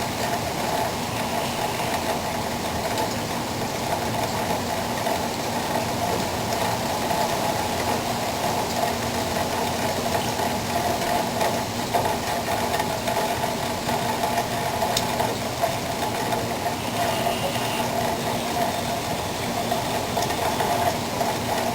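Steady mechanical hum that holds the same pitch without a break.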